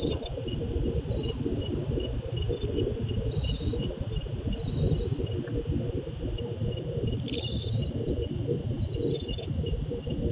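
Crickets chirping steadily, about three chirps a second, over a constant low rumbling hiss, heard through a CCTV camera's low-quality microphone.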